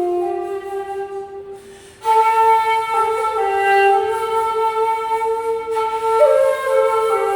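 Shakuhachi, an end-blown bamboo flute, playing slow held notes. A note fades away over the first two seconds, then a new phrase begins sharply at about two seconds and moves between a few sustained pitches.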